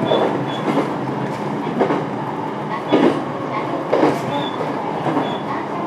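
Running sound inside a JR East E721 series electric train: a steady rumble of wheels on rail, with the wheels knocking over rail joints about once a second.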